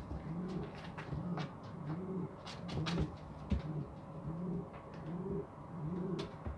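Carrier pigeons cooing, a steady run of low, repeated coos from several birds, with scattered sharp clicks among them.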